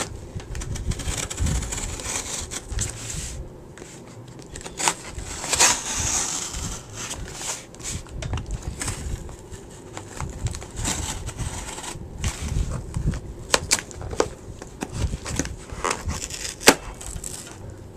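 A mailed package being cut open and unwrapped by hand: crinkling, crackling and tearing of the packaging, broken by scattered sharp clicks and knocks as it is handled.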